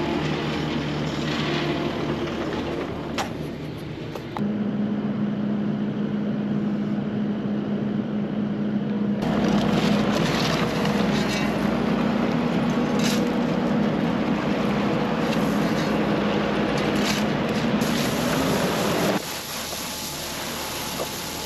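Diesel engine of a Kubota SVL75 compact track loader running with a steady hum. The sound changes abruptly about four and nine seconds in and drops off near the end. A few clinks are heard over it.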